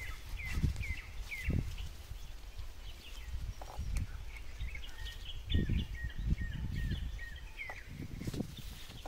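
A small bird calling with short, repeated chirps in two runs, one early and one in the second half, over irregular low rustling and knocking as dry leaves and undergrowth are handled on the ground.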